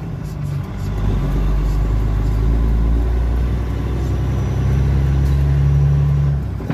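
Steady drone of a truck's engine and road noise heard from inside the cab while driving on the highway, dipping briefly near the end.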